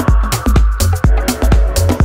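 Electronic dance music with a steady, pounding kick-drum beat and deep bass.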